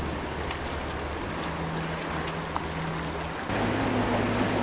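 Fast river water rushing over rocks in shallow rapids, a steady noise that gets a little louder about three and a half seconds in.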